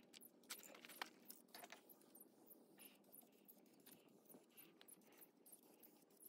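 Near silence: faint room tone with a few soft clicks and taps, the sharpest about a second in.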